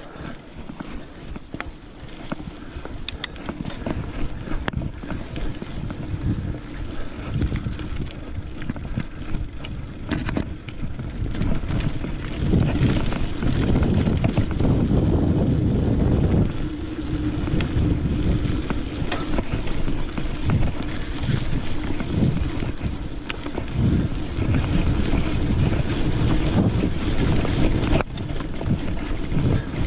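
Mountain bike riding along a dirt trail: a steady rumble of the tyres rolling over dirt and stones, with small rattles and clicks from the bike. It grows louder for a few seconds around the middle.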